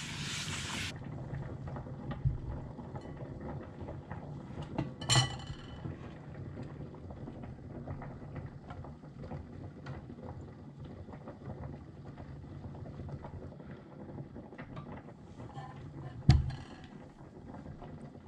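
Stovetop cooking in a frying pan: a steady low rushing noise as pancake batter sets, with a few light clinks of utensils or dishes. A sharper clatter comes about five seconds in and a loud knock about sixteen seconds in.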